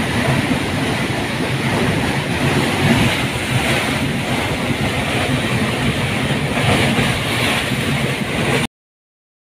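Muddy flash-flood water rushing steadily down a channel, a loud, even rush carrying mud and debris. The sound cuts off suddenly near the end.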